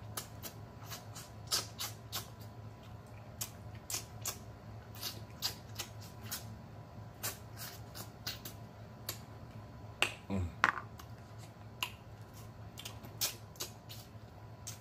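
Close-up mouth sounds of a person eating turkey neck: wet lip smacks and sucking clicks as meat is pulled off the bone, irregular, several a second, with a brief voiced 'mm'-like sound about ten seconds in.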